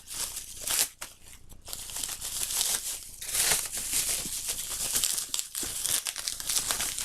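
Packaging crinkling and rustling as items are handled and unwrapped, in irregular crackly bursts that get busier after the first couple of seconds.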